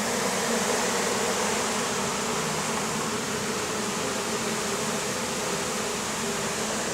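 Honeybees buzzing steadily around the hives, with the drone of single bees passing close wavering up and down in pitch.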